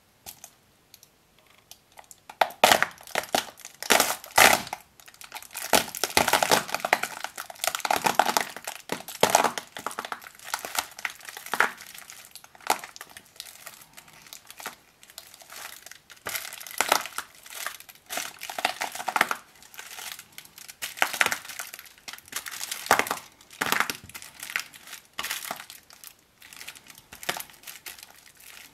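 Foil-wrapped chocolate Saint Nicholas figure crinkling and cracking as it is crushed and ground flat under a sneaker sole. Starting a couple of seconds in, a dense run of crackling, then bursts that come and go.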